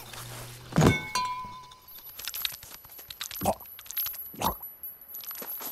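Sound effects: a heavy thump, a brief glassy chime, then scattered light clicks and two soft thuds about a second apart, under a thin high-pitched ringing tone.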